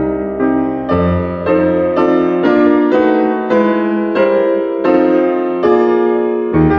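Piano music: a slow, even melody of single notes, about two a second, over low held bass notes. The bass changes about a second in and again near the end.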